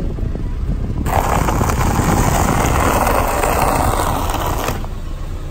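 A car tyre rolls over a heap of dry ring-shaped fruit cereal and crushes it with a dense, crackling crunch. The crunch starts about a second in and stops sharply near the end, over the low rumble of the car.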